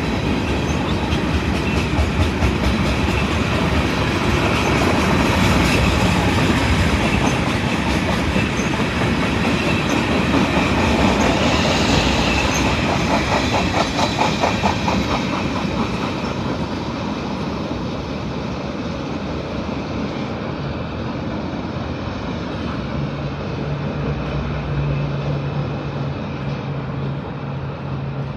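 Train cars rolling past, their wheels clacking rhythmically over the rail joints with a heavy rumble, then fading as the train moves away. A steady low hum comes in near the end.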